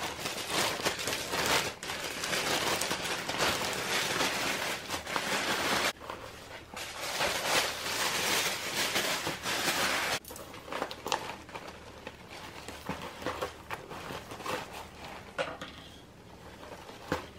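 Thin clear LDPE plastic bag crinkling and rustling as it is handled and pulled off a new tote bag, dense for about ten seconds, then quieter handling with scattered light clicks.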